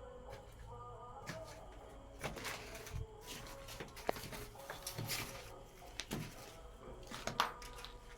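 Irregular knocks, clinks and scrapes of hand work, with a sharp knock about four seconds in and another near the end.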